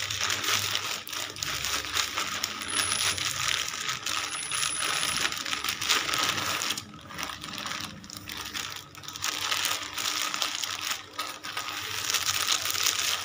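Thin plastic bags crinkling and rustling as a filled bag of chili powder is worked into a second bag, with a quieter stretch about seven to nine seconds in.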